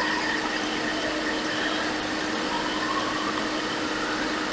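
Hot air rework station blowing steadily, with a constant hum and a faint whine, while a component is heated off a MacBook logic board.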